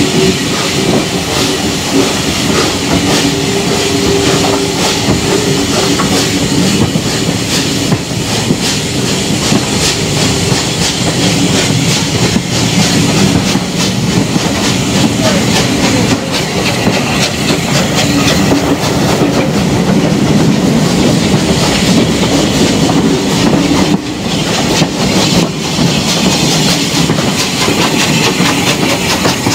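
Heritage passenger train running along the line, heard from a carriage window: a steady rolling rumble with wheels clicking over rail joints and pointwork.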